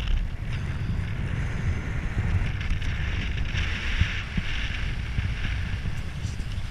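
Wind rushing past and buffeting the microphone of a head-mounted camera during parachute canopy flight: a steady low rumble with a hiss above it, the hiss swelling a little in the middle.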